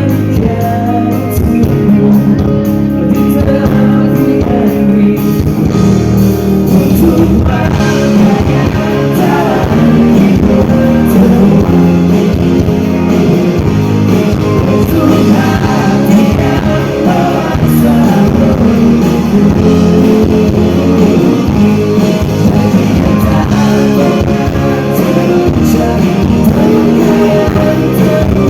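Live rock band with guitars, drums and a singer, played loud over a PA and recorded from the audience.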